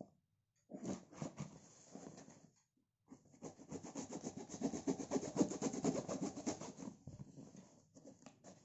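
Trimmer packaging being handled and rubbed at while someone tries to open it. A short scrape about a second in is followed by about four seconds of rapid scraping and rubbing strokes, which fade near the end.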